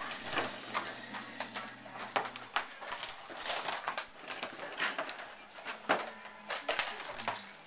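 Plastic toy parts being handled: irregular clicks, clatter and rustling.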